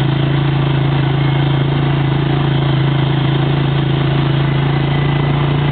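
ATV engine running steadily as the quad drives along a rough dirt road.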